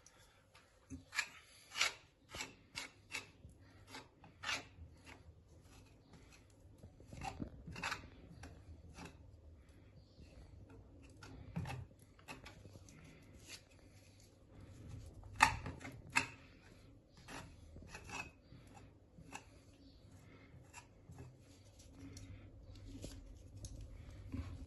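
Putty knife spreading and scraping wood filler into a damaged wooden door frame: faint, irregular short scrapes and taps of the metal blade, with one sharper stroke about two thirds of the way through.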